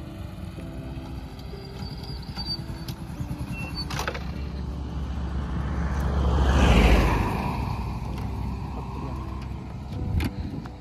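A motor vehicle on the road passes close by, growing louder to its peak about seven seconds in and then fading away. There are a couple of sharp clicks, one about four seconds in and one near the end.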